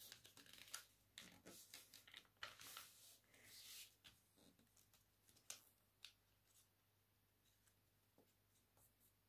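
Faint rustling and creasing of a paper airplane being folded and pressed flat by hand: a few soft scrapes and taps, mostly in the first four seconds, then near silence.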